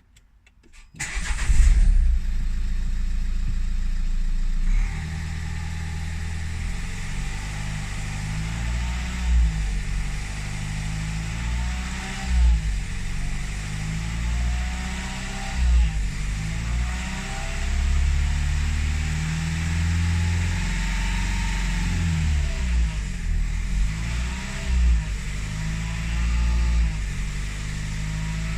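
1.5 dCi four-cylinder turbodiesel starting about a second in, then running and being revved up and down repeatedly, its pitch rising and falling. It is being run through the 1500–2000 rpm range where an annoying noise appears since the timing belt and water pump were replaced.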